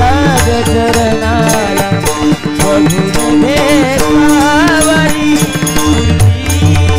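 Devotional bhajan music: a wavering, ornamented sung melody over a steady held harmonium tone, with a hand drum and small hand cymbals keeping the beat.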